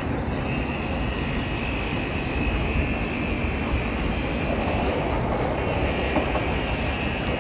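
Steady rumbling noise of a moving vehicle, with a faint steady high tone running through most of it.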